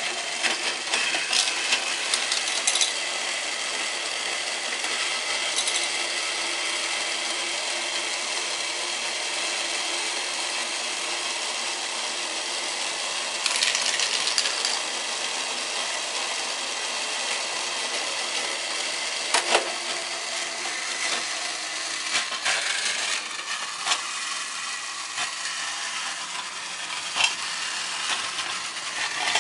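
A battery-powered Thomas & Friends Percy toy engine runs along plastic track, its small electric motor and gears giving a steady whine. Now and then there are short bursts of light plastic clicking and clatter from the engine and the loader set.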